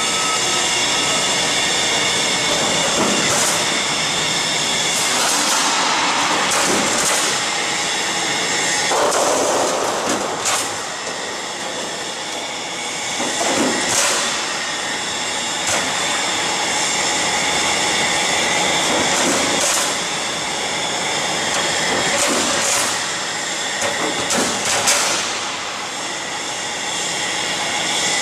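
Roll forming machine running: a steady mechanical running noise from its roller stands and drive, with several steady whining tones and occasional sharp clicks and knocks as the steel strip feeds through the rollers.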